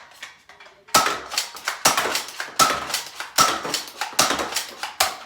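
Nerf Spectre Rev.5 toy blaster being fired again and again: a series of sharp pops and clacks about one every 0.8 seconds, with lighter clicks in between.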